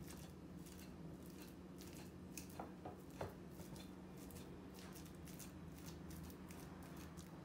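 Faint, soft clicks and scrapes of a metal fork mashing banana on a ceramic plate, with a few sharper taps of the fork on the plate about two to three seconds in.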